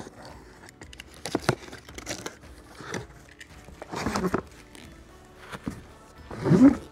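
Utility knife slitting the packing tape on a cardboard box, cardboard flaps rustling and crinkling as it is opened, then plastic epoxy jugs lifted out, with a louder knock near the end. Light background music underneath.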